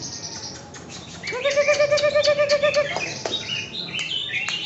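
Caged greater green leafbirds (cucak ijo) singing in chorus, with scattered chirps and sharp clicks. About a second in, a loud rapid pulsing trill starts and holds for about a second and a half.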